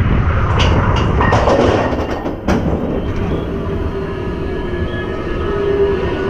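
Expedition Everest roller coaster train climbing its lift hill: a heavy rumble with a few sharp clicks in the first couple of seconds, then a steady mechanical hum with a held tone setting in about halfway through.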